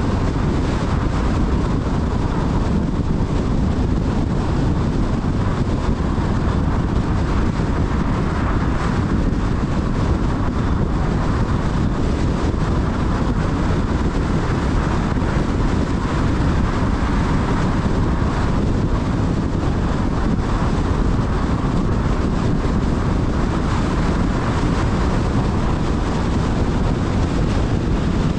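Steady road noise of a car driving along at speed: tyre roar and wind rush, even and unchanging throughout.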